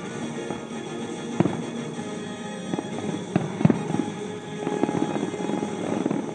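Fireworks bursting in the sky: several sharp bangs a second or so apart, loudest a little past the middle, over music playing throughout.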